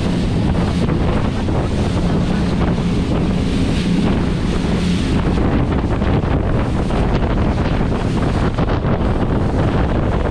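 Wind buffeting the microphone on a fast rigid inflatable boat, over the rush and splash of spray off the hull. A steady engine hum sits underneath, clearest in the first half.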